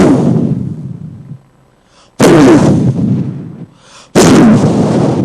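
Three loud explosion-like booms about two seconds apart, each hitting suddenly and fading away over a second or so with a falling pitch.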